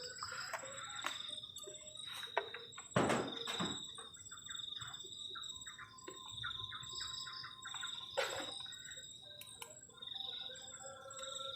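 Crickets trilling steadily on one high, pulsing note, with a bird giving a quick run of short chirps in the middle. Several sharp knocks cut across it, the loudest about three seconds in.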